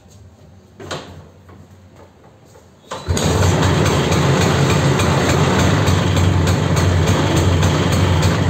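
Bajaj Chetak two-stroke scooter engine catching about three seconds in and then running steadily at idle, after a single thump about a second in.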